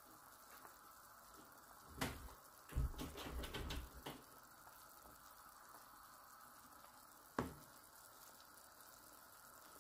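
A spoon tapping and scraping against the pot as foam is skimmed off a simmering braise. There is one sharp tap about two seconds in, a short run of knocks and scrapes about a second later, and another tap near the end, over a faint steady simmering hiss.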